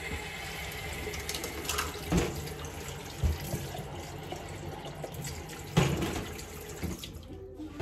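Water running from a kitchen tap, filling an electric kettle, with a few knocks and clunks, the loudest about six seconds in. The running stops near the end.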